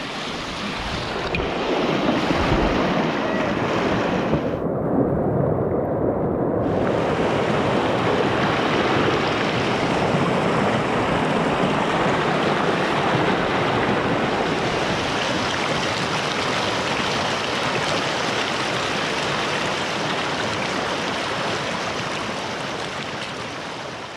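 Loud, steady rush of river whitewater heard from a kayak. About five seconds in it turns muffled for about two seconds, and it fades near the end.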